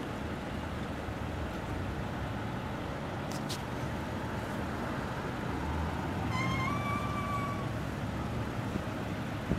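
Street traffic at an intersection: a steady low rumble of idling and passing vehicles. About six seconds in, a brief high squeal rises slightly and holds for about a second and a half.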